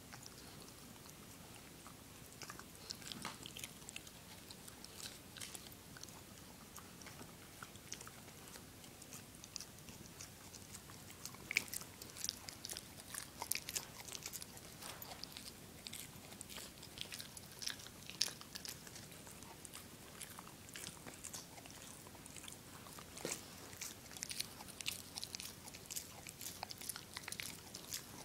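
A dog gnawing and chewing a rawhide chew: irregular crunches and clicks, sparse at first and coming thick and fast after the first third or so.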